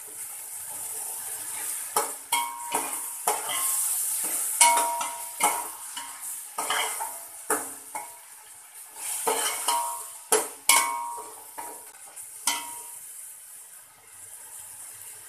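Metal ladle scraping and clanking against a large aluminium pot while stirring ginger-garlic paste into frying onions, over a steady sizzle of hot oil. The clanks come irregularly, several a second at times, and stop a few seconds before the end, leaving only the sizzle.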